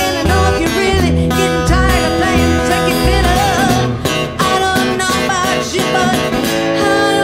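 Live band music: electric bass and strummed acoustic guitar playing a country-rock song, with a voice singing over them.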